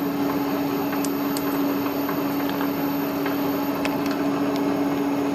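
Milling machine running steadily, its spindle turning a four-flute carbide end mill at about 760 RPM, with a steady hum and a few light ticks.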